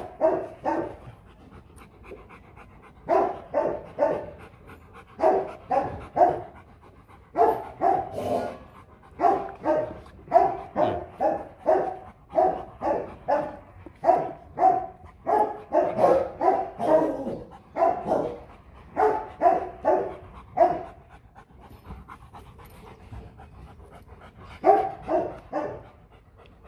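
Dog barking in quick runs of three or four barks, repeated with short pauses between runs, going quiet a few seconds before the end and then giving one more short run.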